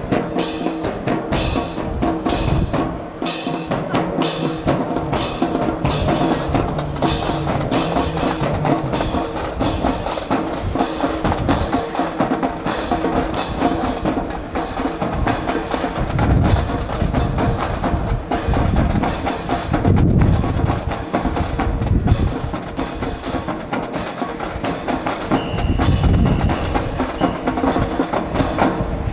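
Marching drum cadence, with snare and bass drum beating a steady step of about two strokes a second to keep a drill team in time. Heavier bass drum beats come in the second half.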